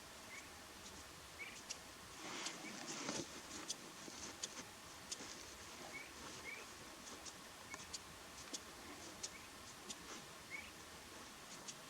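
A wild squirrel moving about: faint scattered clicks and a brief rustle about two to three seconds in, with a few short, faint rising chirps.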